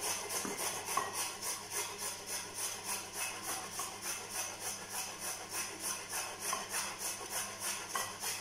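A carrot rubbed up and down on the metal teeth of a box grater, a rhythmic rasping at about three strokes a second.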